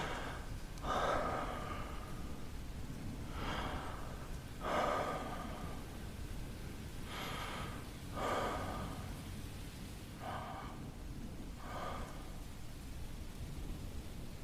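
A man breathing slowly and deeply close to the microphone. There are soft in-and-out breaths every second or two, and they grow fainter toward the end.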